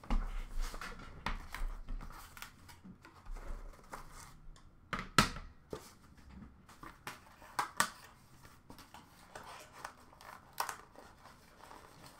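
Cardboard trading-card box being handled and opened by hand: crinkling and tearing of packaging with scattered sharp clicks and taps of cardboard, the loudest snap about five seconds in.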